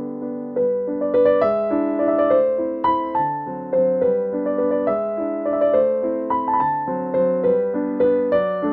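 Background piano music: a gentle melody of single struck notes over held chords, each note fading away, at an even, unhurried pace.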